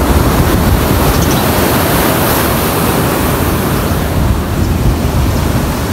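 Loud, steady rush of fast-flowing water in a concrete-lined irrigation canal, mixed with wind buffeting the phone's microphone as a low rumble.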